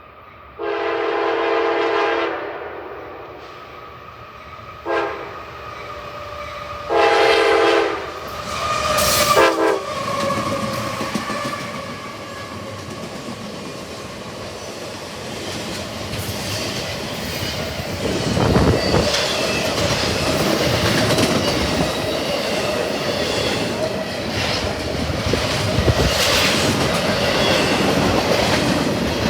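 Diesel freight locomotive's multi-chime air horn sounding four blasts, long, short, long, short, as a fast intermodal stack train approaches. The train then runs by, its wheels clattering steadily over the rail joints.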